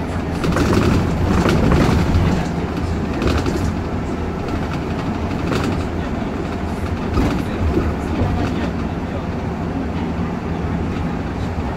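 Cabin noise inside a moving bus: a steady low drone of engine and tyres on the road, with scattered rattles and knocks, mostly in the first few seconds.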